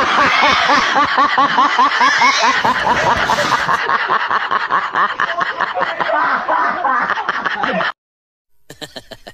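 A person laughing hard in a fast, unbroken string of short ha's, about four or five a second, which cuts off abruptly about eight seconds in.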